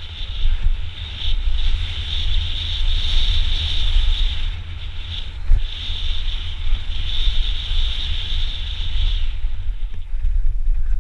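Wind buffeting the camera microphone of a mountain bike descending a dirt downhill trail, a heavy steady rumble, with the bike's tyres and frame rattling over gravel and a high hiss that drops out briefly twice.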